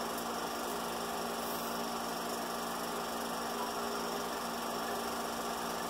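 Film projector running, giving a steady electrical hum over a hiss through its sound system between lines of narration.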